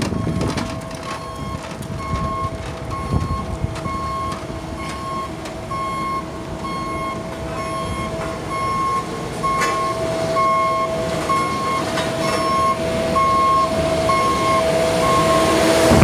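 Backup alarm on a road roller beeping steadily in short, evenly spaced beeps over the roller's diesel engine, which grows louder as the machine draws close.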